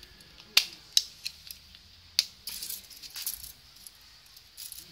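Three sharp clicks, then bursts of light rattling, from a tape measure being handled and laid along an orchid cane.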